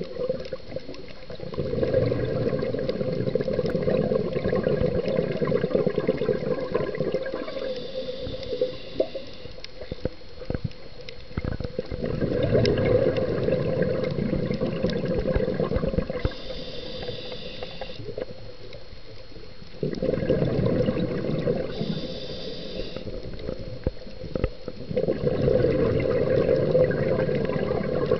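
Scuba diver breathing through a regulator underwater: four long, bubbling exhalations, with short hissing inhalations in the quieter gaps between them.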